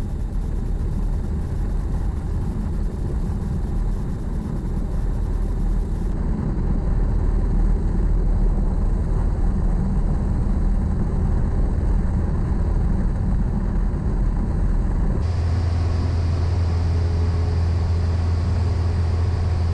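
Cessna 172M's four-cylinder Lycoming engine and propeller running at high power through the takeoff roll and climb, a loud steady drone. Its tone changes abruptly twice, about six and fifteen seconds in.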